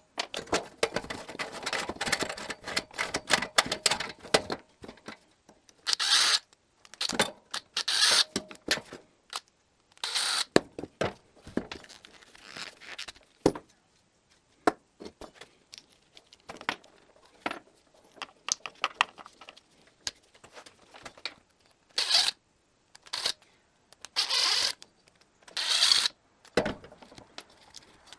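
Hand disassembly of a metal power converter: irregular clicks, clatter of metal parts and short scraping bursts, coming in clusters with brief pauses between.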